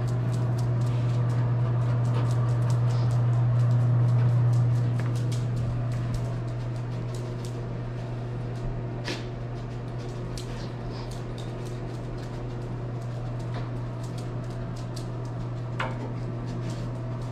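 A detection dog sniffing in quick bursts as it searches, its claws clicking on a tiled floor. Underneath runs a steady low hum, louder over the first few seconds.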